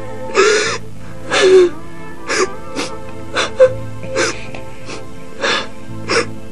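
A woman sobbing and wailing in short, broken cries, one or two a second, over sustained background music.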